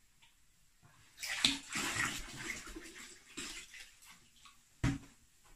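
Cold tap water poured from plastic containers into a plastic bucket, splashing from about a second in and tailing off over a couple of seconds. A short knock comes near the end.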